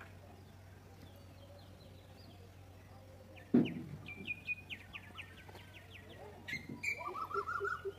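Birds chirping: a quick run of short high chirps about four seconds in, then another bird's rapid run of repeated notes near the end. A single dull thump comes just before the chirping, the loudest sound here.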